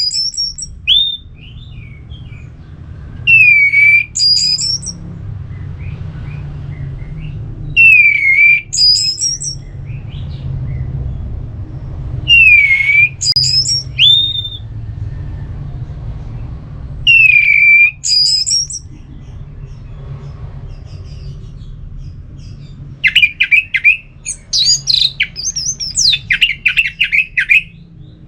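Orange-headed thrush singing loud, clear phrases with pauses of about four seconds between them; each phrase is a dipping whistle followed by a few higher notes. Near the end it breaks into a faster run of varied twittering notes. A steady low hum runs underneath.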